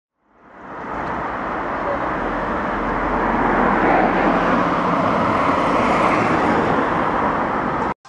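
Road traffic: cars on a town street, a steady rush of engine and tyre noise. It fades in over the first second and stops abruptly near the end.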